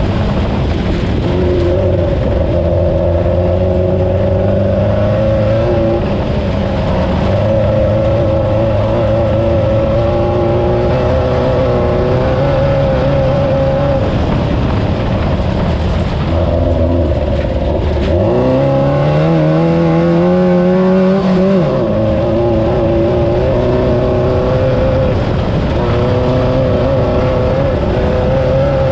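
Class 9 off-road race buggy's air-cooled VW engine running hard, its note wavering with the throttle. About 18 seconds in, it climbs steadily in pitch for roughly three seconds, then drops back.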